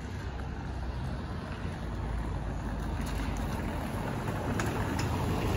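Outdoor rumble and hiss of wind buffeting the microphone, getting slowly louder, with a few faint ticks in the second half.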